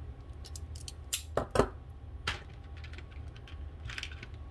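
Sharp metal clicks and clacks of hand-held wire strippers being worked on a wire, then a knock as the tool is set down on a wooden bench, over a steady low hum. The clicks come in a burst between about half a second and two seconds in, with a smaller clatter near the end.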